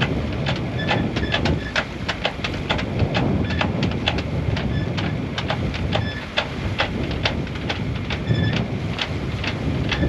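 A yacht underway in rough water: a steady low rumble with fast, irregular rattling clicks throughout.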